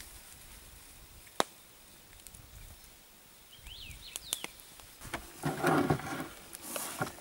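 Quiet forest ambience with a sharp click and a few short bird chirps, then a knife scraping and knocking on a fish laid on a wooden board for a couple of short noisy bursts near the end.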